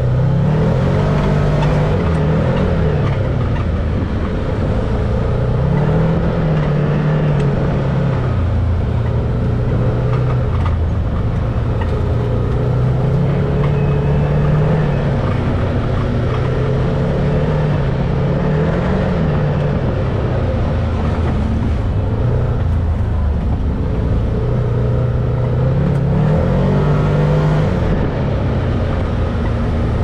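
Can-Am Maverick X3 UTV engine heard from the driver's seat, running steadily. Its revs rise and fall every few seconds as the throttle is worked on a dirt trail.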